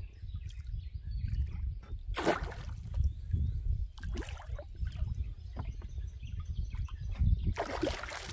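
Water splashing twice, about two seconds in and again near the end, over a steady low rumble of wind on the microphone.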